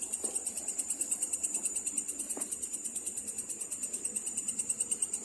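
Crickets chirping steadily in a high, rapidly pulsing trill, with a couple of faint knocks.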